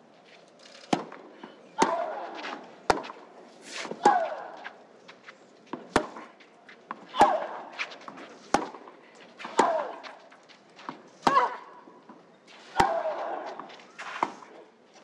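Tennis ball struck back and forth in a long baseline rally on a clay court, starting with a serve about a second in. It goes to about eleven racket strikes, one every second or so. Every other strike is followed by a player's short grunt that falls in pitch.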